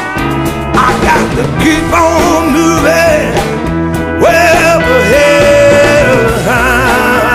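Rock-style background music: a wavering, gliding lead melody over a full band.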